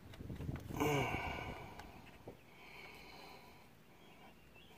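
A man's short strained grunt about a second in, then a couple of faint clicks of a screwdriver prying at the plastic clip on an engine wiring connector.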